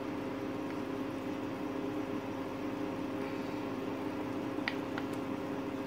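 Steady low mechanical hum, with two light clicks close together near the end.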